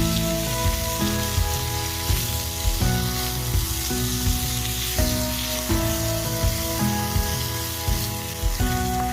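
Food sizzling as it fries in a pan. Background music with a steady beat plays over it.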